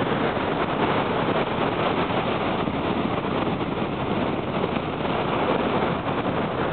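Niagara Falls' water pouring down: a steady, unbroken rushing noise.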